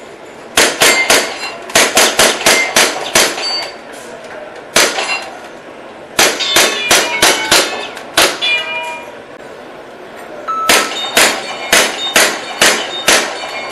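Airsoft gun fired in quick single shots, the BBs striking metal targets that clang and ring with each hit. There are three runs of rapid hits, about three or four a second, with a lone hit between the first two runs.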